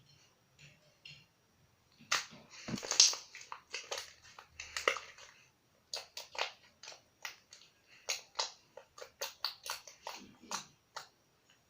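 Slime being squished and pressed by hand, giving a run of sharp wet pops and clicks. The clicks start about two seconds in and come thickly at first, then settle to about three a second.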